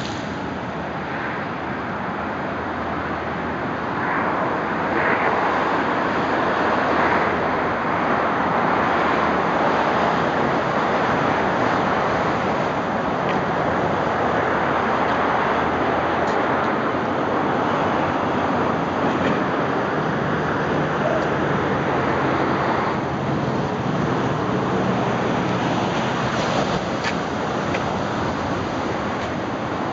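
Ocean surf washing onto the beach: a steady rushing that swells about four seconds in.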